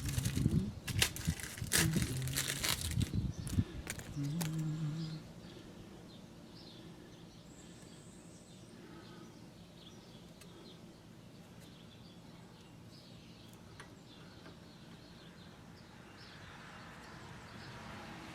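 Crinkling and clicking handling noises for about five seconds, then a quieter stretch with faint scattered chirps.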